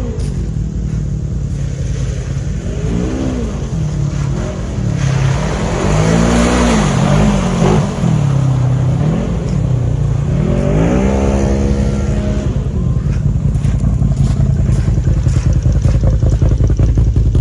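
ATV engine revving up and down several times, the pitch rising and falling in quick swings, then settling into a loud, low, steady rumble near the end.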